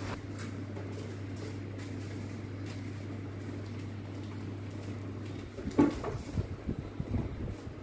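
Hands handling soft pau dough close to the microphone, folding and pinching a filled bun shut: irregular soft rustles and taps from about five and a half seconds in, the loudest a single bump near six seconds. A low steady hum runs underneath throughout.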